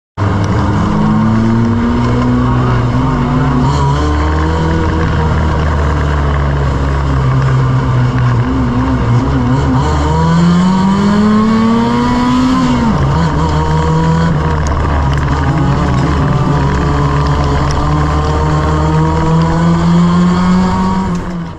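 1-litre stock car engine racing, heard from inside the cockpit, its pitch rising and falling with the throttle. About halfway through the revs climb steadily for a couple of seconds, then drop sharply. The sound cuts off abruptly at the end.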